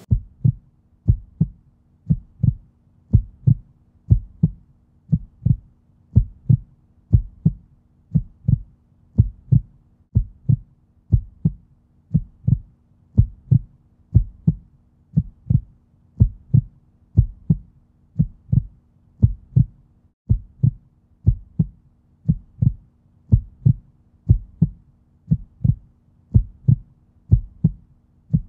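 Heartbeat sound effect: a steady, loud lub-dub double thump repeating a little under once a second, over a faint steady hum.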